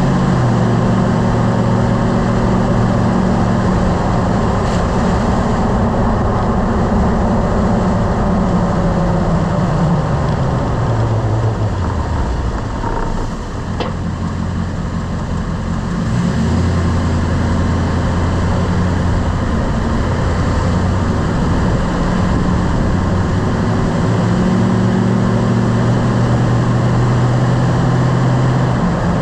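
Lifted truck driving with a steady engine and road noise. The engine note drops as the truck brakes and slows about ten to thirteen seconds in. A single sharp click comes as it nearly stops, likely the braking clunk the owner is trying to trace. Then the engine pulls away and climbs again.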